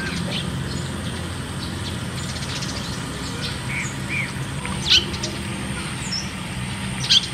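Water spraying from a leaking pipe joint at a water meter and splashing onto a metal sheet, a steady rush. Birds chirp over it, with two louder, sharp calls about five seconds in and near the end.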